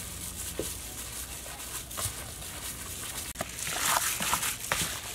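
Raw cow udder pieces being squeezed and mixed with sauces in a bowl by a hand in a plastic glove: wet squelching and crinkling, busier and louder from about halfway through.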